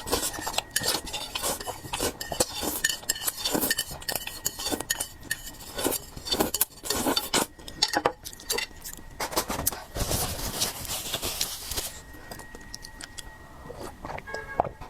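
Eating utensils clinking and scraping against a dish while mixing and picking up fried noodles: many small, irregular clinks, a denser stretch of scraping about ten seconds in, then fewer, quieter taps near the end.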